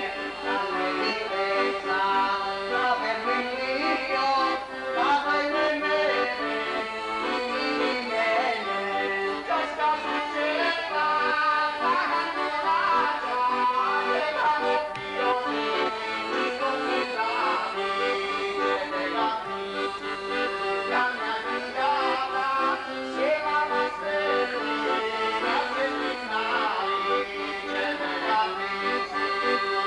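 Accordion playing a traditional folk tune.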